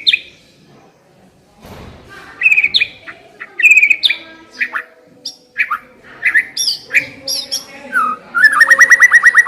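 White-rumped shama singing: a string of short, loud whistled notes and downslurred phrases, ending in a fast, even trill near the end.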